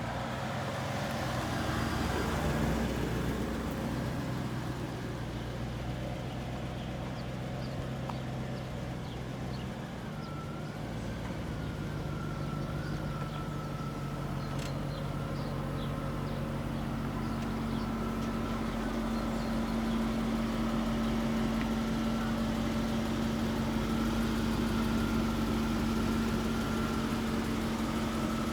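A 1993 Chevrolet Corvette C4's V8 idling steadily through its stock exhaust.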